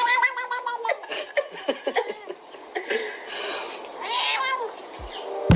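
A cat meowing: one long drawn-out call at the start, a run of shorter calls after it, and another arched call about four seconds in.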